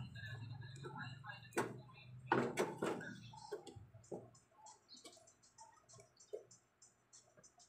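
Plastic knocks and clicks of an LED TV's diffuser sheet and panel frame being handled: a few sharp knocks between about one and a half and three seconds in, then faint scattered ticks. A low hum underneath fades out after about three seconds.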